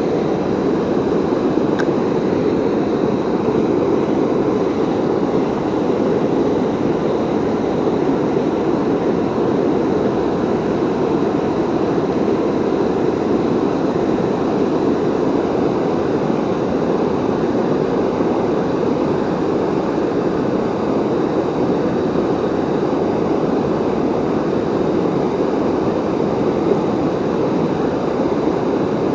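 Waterfall running: a steady, loud rush of falling water.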